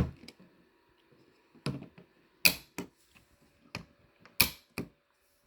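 Sharp, irregular clicks and knocks from the TSA combination lock and latches of a carry-on suitcase being handled, about seven in all, the loudest about two and a half and four and a half seconds in.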